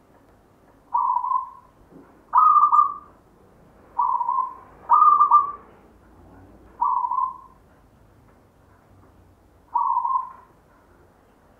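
A caged local perkutut (zebra dove) cooing: six short phrases, a second or so apart, with a longer pause before the last. Some phrases are single coos and some break into two or three quick notes.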